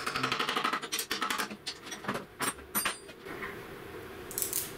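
Rapid clicking and light metallic clatter from hand work on the planer thicknesser's sprocket and feed drive for about a second and a half, then a few scattered clicks.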